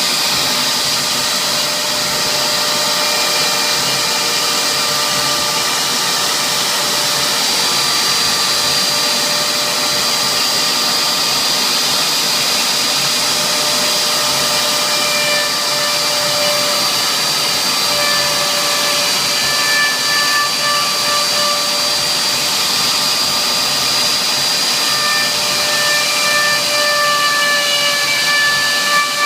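CNC router spindle running and cutting as it engraves a signature board: a steady high whine over a constant hiss, with some whine tones shifting slightly in the second half.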